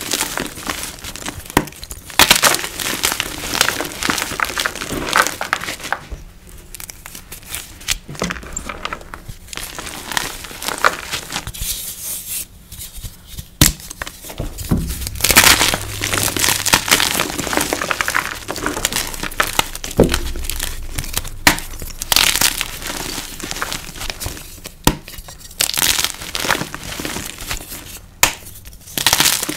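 Soft, crispy chalk blocks ('freshies') coated in neon powder being squeezed and crushed by hand, crumbling in bursts of crisp crunches with powdery crumbles between them.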